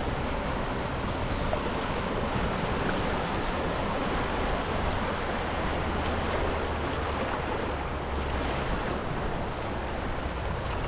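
River water rushing steadily past a raft, with wind rumbling low on the microphone.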